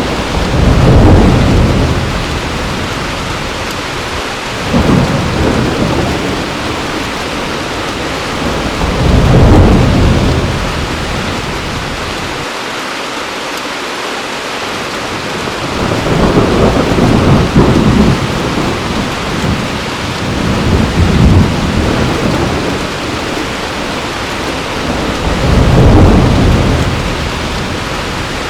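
Heavy rain falling steadily, with rolls of thunder that swell and fade about six times, every few seconds.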